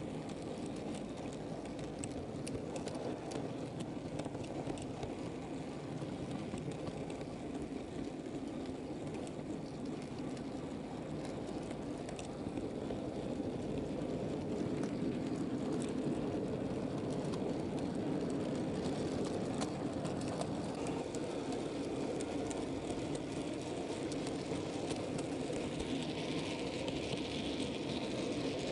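Model railway goods train rolling along the track, heard from a camera riding on the train: a steady rumble of wagon wheels on the rails with occasional faint clicks, a little louder from about halfway on.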